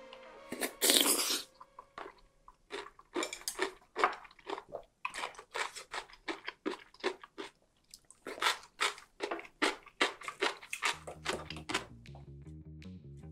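A loud slurp of noodles and soup from a stone pot of spicy ground-loach soup, then steady close-up chewing. Background music with a low beat comes in near the end.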